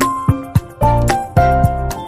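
Background music: a light, bright tune of plucked or chiming notes over a bass line, with a steady beat.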